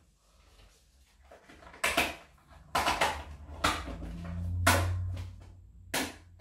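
Handling noise of planner materials on a desk: a planner dashboard and papers being picked up and set down, giving about five sharp knocks and clatters, with a brief low rumble near the middle.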